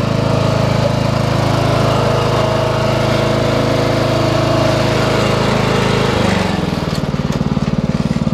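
Engine running steadily close by, then dropping about six seconds in to a slower, lumpy idle with its separate firing beats audible.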